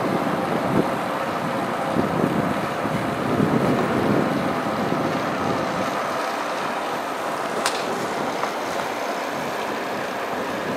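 Steady outdoor background noise with wind buffeting the microphone, swelling and easing in the first half. One short sharp click about three quarters of the way through.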